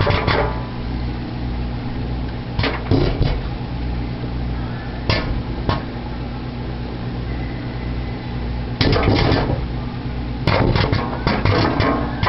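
Popcorn kernels popping off the cob inside a running microwave oven, whose steady hum sits under the pops. A few scattered pops at first, then coming faster in clusters during the last few seconds.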